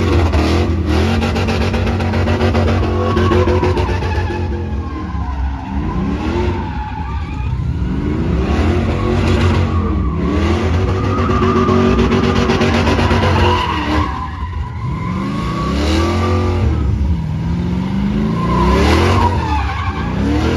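Pickup truck doing a burnout: the engine revs hard, its pitch climbing and dropping again several times, over the steady hiss and squeal of spinning tyres.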